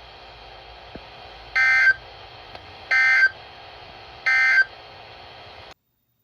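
NOAA Weather Radio sending the SAME end-of-message code: three short, identical bursts of warbling two-tone digital data about 1.4 s apart, over faint radio hiss. They mark the end of the severe thunderstorm warning. The sound cuts off abruptly near the end.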